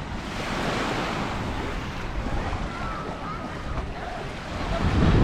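Surf washing onto a sandy beach, mixed with wind on the microphone, with a louder, deeper rush just before the end.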